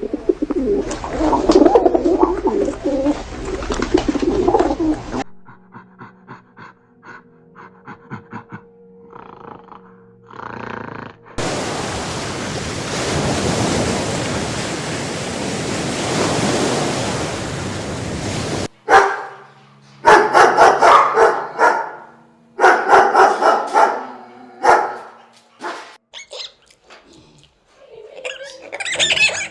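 A series of separate animal recordings cut one after another, among them a dog barking in short loud bursts in the second half. The middle holds a stretch of about seven seconds of steady rushing noise.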